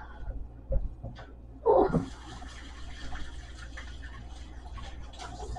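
Kitchen tap turned on about two seconds in and running steadily as a pan is washed under it, after a couple of short knocks from the pan being handled.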